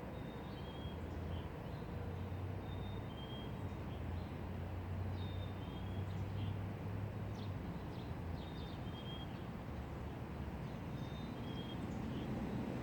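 Wind blowing through trees, a steady rushing noise, with short high bird chirps repeated throughout.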